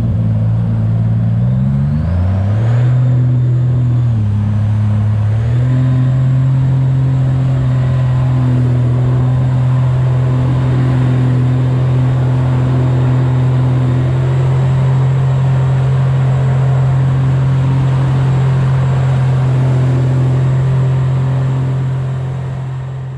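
250-horsepower outboard motor driving the boat at speed, with water rushing past the hull. The revs dip and rise a few times in the first five seconds, then hold steady. The sound fades out near the end.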